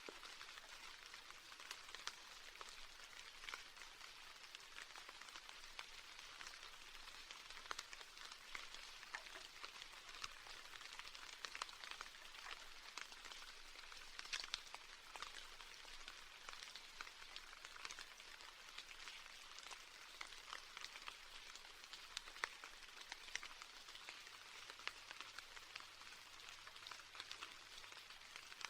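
Steady rain with many separate drops ticking sharply over a soft hiss.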